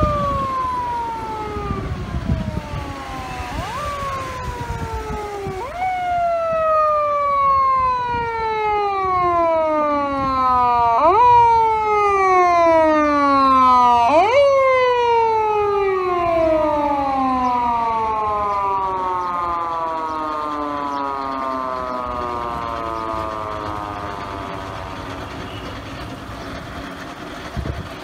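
Police car's foot-pedal mechanical siren, wound up in sharp jumps of pitch about five times, each followed by a slow falling wail. After the last and loudest wind-up, about halfway through, it winds down in one long falling tone that fades away.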